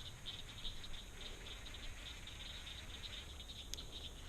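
A steady, high-pitched outdoor chorus of small calling animals, pulsing rapidly, with a low rumble underneath.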